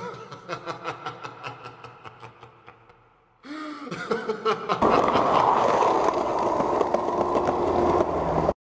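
A run of quick clicks that fade away over about three seconds. Then, from about four seconds in, the steady rolling rumble of skateboard wheels on asphalt, which cuts off just before the end.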